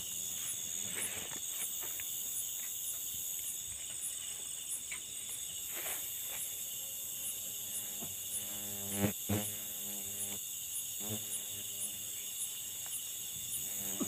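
Night chorus of crickets and other insects: a steady high shrilling with an evenly pulsing chirp above it. A few rustles and one sharp click come about nine seconds in.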